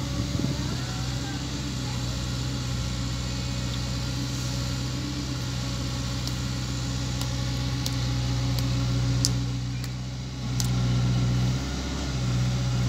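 Diesel engine of a Caterpillar mini excavator running steadily as it digs and swings a bucket of soil over to a dump truck, with the truck's engine idling alongside. The hum dips briefly about ten seconds in, and a few faint sharp clicks come in the second half.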